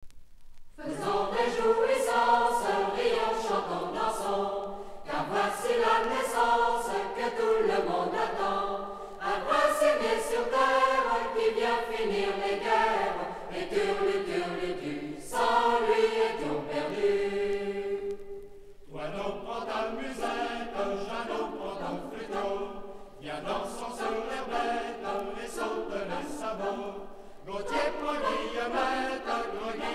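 Choir singing a traditional French Christmas carol from a vintage LP, in phrases of a few seconds with short breaks between them; the singing is softer from about two-thirds of the way in.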